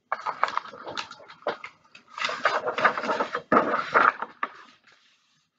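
Pages of a picture book being handled and turned close to the microphone: paper rustling with small clicks and crackles for about four and a half seconds, then fading out.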